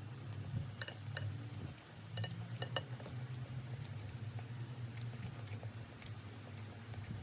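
Light clinks of cutlery against dishes: a few sharp ringing taps about a second in and again between two and three seconds, then fainter taps, over a steady low hum.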